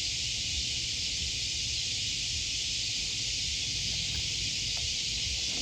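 Steady, even hiss with a low rumble underneath and no distinct event.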